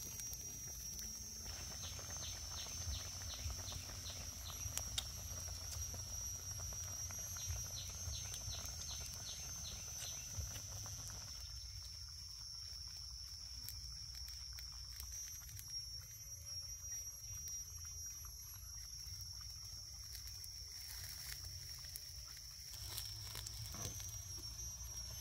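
Forest ambience: a steady high-pitched insect drone, with a quick run of short chirps, about three a second, in the first half. A wood fire crackles with small scattered snaps.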